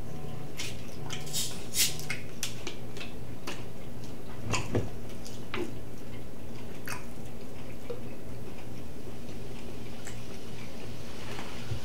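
Close-miked eating: chewing and wet mouth sounds from biting into chicken wings, with scattered sharp clicks, over a steady low hum.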